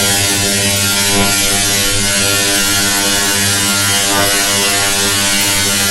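Synthetic buzzing drone from the Melobytes online vocoder: a low, steady buzz with a bright hiss over it, unchanging in pitch and loudness.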